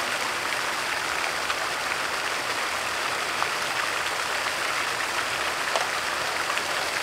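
Steady outdoor rushing noise, an even hiss with no tones in it, that cuts off abruptly at the very end.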